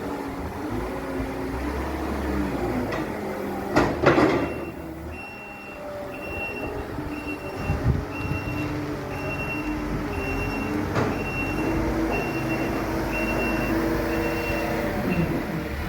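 Heavy farm machinery engine running and changing pitch on a silage clamp, with a loud clatter about four seconds in. From about five seconds in, a reversing alarm beeps steadily, about twice a second.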